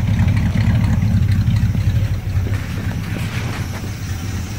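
Engine of a 1979 Dodge D300 pickup idling steadily on a newly fitted Edelbrock Performer 600 cfm four-barrel carburetor, heard close to its exhaust pipe. It gets a little quieter about halfway through.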